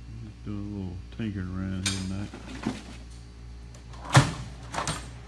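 Metal hand tools clanking as they are handled and set down, a few separate clanks with the loudest about four seconds in.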